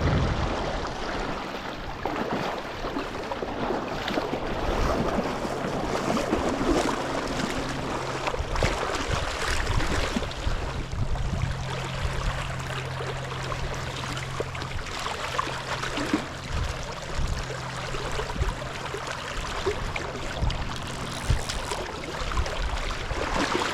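Flowing river water making a steady rushing sound, broken by many brief sharper sounds.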